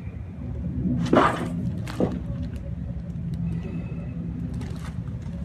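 Chiropractic neck (cervical) adjustment: a short rushing noise about a second in, then one quick sharp crack of the neck joints about two seconds in, over a steady low hum.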